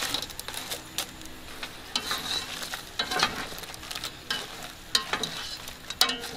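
Shell-on pepper shrimp sizzling in a metal pot while a spatula stirs and scrapes them, with irregular sharp scrapes and knocks of the spatula against the pot.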